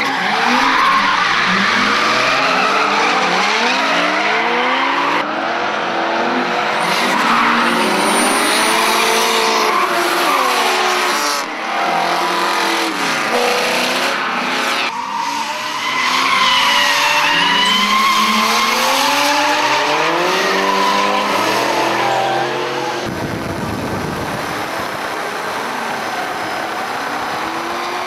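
Several drift cars running in a tandem train, their engines revving up and down over one another while the tyres squeal through the slides. The sound cuts abruptly between shots several times, and after about twenty-three seconds the cars are quieter and more distant.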